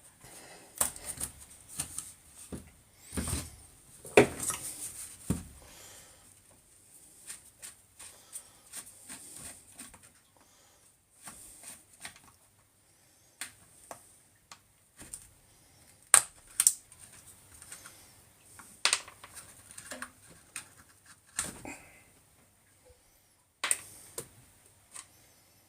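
Irregular clicks, taps and knocks of small hand tools and hard plastic and metal parts being handled while a cordless angle grinder is taken apart, with quiet gaps between them.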